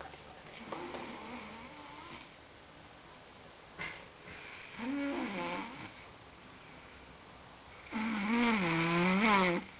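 A person snoring: three drawn-out snores with a clear pitch that wavers up and down. The last, about eight seconds in, is the loudest.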